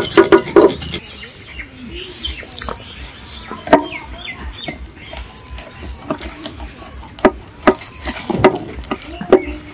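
Knife working a large needlefish on a metal tray: a quick run of scraping strokes at the start, then a few sharp chopping knocks spread through the rest. Birds chirping and faint voices in the background.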